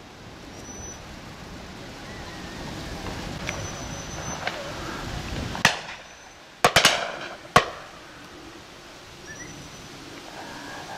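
Shotgun shots at driven game birds: a single shot about halfway through, a quick pair about a second later, then one more shortly after.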